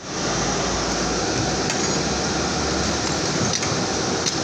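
Crucible furnace burner running: a steady rushing noise of flame and blown air, with a few faint clicks.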